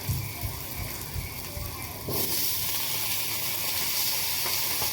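Onions frying in hot ghee in a pan, a steady sizzling hiss. A few low knocks come in the first two seconds, then about two seconds in the sizzle jumps louder and stays so, as the onions hit the hot fat.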